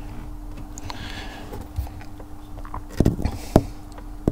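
Insulated crimp spade connectors on bilge pump wiring being handled and pushed together, with a few sharp clicks about three seconds in, over a steady low hum.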